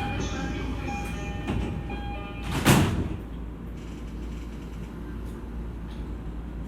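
Door-closing sequence on an E231-series commuter train at a station stop: repeated electronic chime tones, then the sliding doors shut with a loud thud about two and a half seconds in. A steady low hum of the standing train follows.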